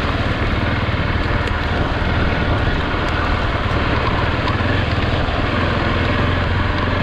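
Motorcycle engine running steadily under way, under an even hiss of wind and rain on the microphone.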